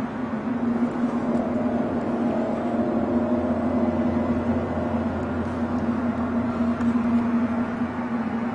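Steady droning hum with a few held tones above it and a low rumble that swells through the middle.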